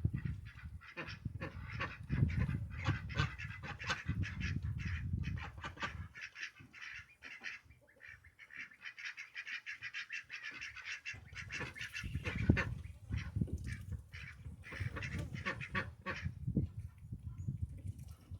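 Domestic waterfowl calling: a rapid, dense chatter of quacks and honks from several birds, with a low rumble underneath for the first few seconds and again past the middle.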